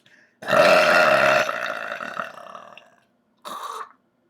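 A person's long, loud, deliberate burp, gassy from a lot of soda. It starts about half a second in, stays at full strength for about a second and trails off over the next second and a half. A short, quieter voice sound follows near the end.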